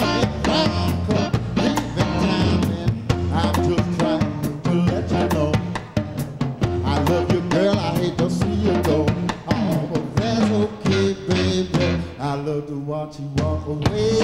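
A blues band playing live: drum kit, bass and electric guitar, with a man singing into the microphone.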